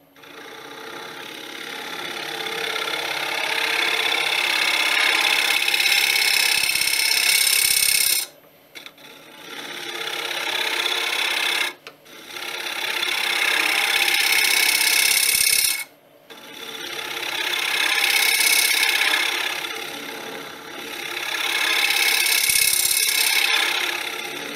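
Carbide-tipped woodturning tool cutting across the face of a spinning wooden blank on a lathe: a hissing scrape in four long passes, three of which end abruptly. The cuts are smoothing away rough, torn end-grain patches.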